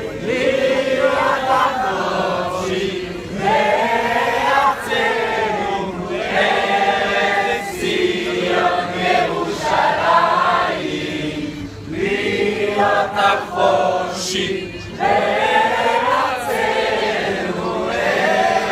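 A large crowd singing together in unison, in phrases of a second or two with short breaks between them.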